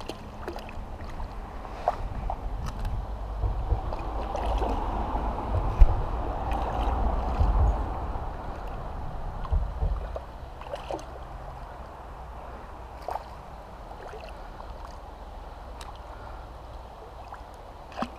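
Water sloshing and splashing around a landing net as a freshly caught brown trout is netted and handled at the surface, with a few light knocks. It is busiest in the first half and settles to quieter lapping water.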